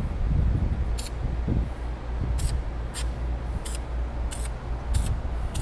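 Aerosol spray-paint can giving about seven short hisses, one to two seconds apart, as paint is sprayed onto the canvas, over a steady low rumble.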